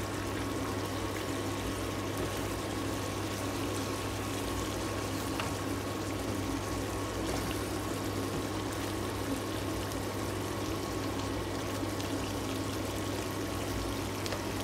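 Pork and eggplant in a shrimp-paste sauce simmering in a frying pan: a steady bubbling, sizzling hiss, with a steady low hum underneath.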